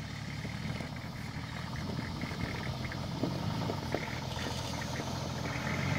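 Nissan Patrol SUV's engine running at low revs as it crawls down a rocky dirt track, slowly getting louder as it approaches, with faint scattered crackles over the steady hum.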